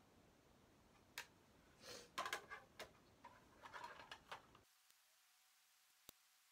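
Near silence broken by a cluster of faint clicks and taps with a brief soft rustle, from a makeup brush and plastic eyeshadow palette being handled, in the middle; one last faint click after that.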